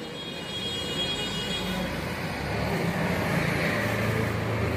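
Motor vehicle engine rumble from road traffic, a steady low hum that slowly grows louder through the second half.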